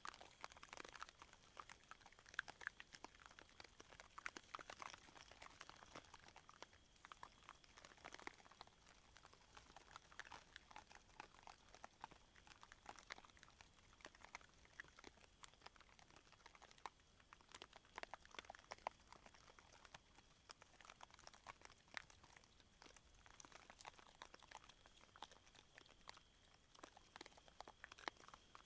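Wild boar chewing and crunching maize kernels: a continuous run of irregular crunches and clicks.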